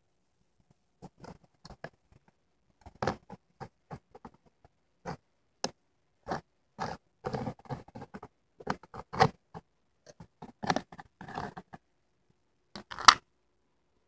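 A plastic food container being handled: irregular scrapes, taps and knocks against the plastic, with a sharp loud click near the end.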